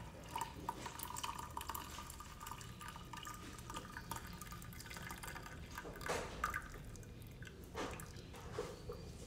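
Ginger drink pouring and dripping from an aluminium pot through a plastic tea strainer into a cup, with a few light knocks in the second half.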